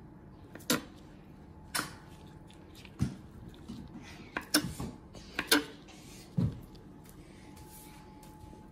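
Kitchen knife cutting down through soft feta cheese, the blade knocking on the cutting board about seven times, sharp single knocks at uneven intervals of roughly a second.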